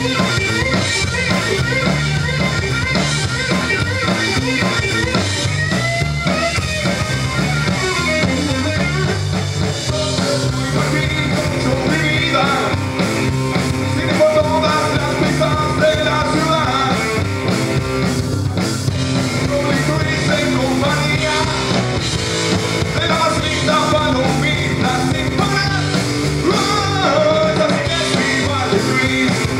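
Live rock band playing: distorted electric guitar, electric bass and a drum kit keeping a steady beat.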